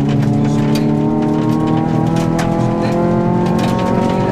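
Rally car engine heard from inside the cabin, pulling hard under acceleration, its note climbing slowly, with a change in pitch at the start and again near the end. Gravel ticks and pings against the car's underside throughout.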